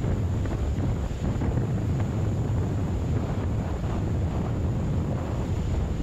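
Strong storm wind buffeting the microphone as a steady low rumble, over rough, choppy waves splashing against a seawall.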